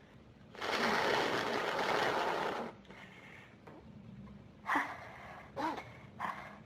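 A person's nose and breath sounds at the end of a sneezing fit: a loud, noisy blow lasting about two seconds, then three short sniffles near the end.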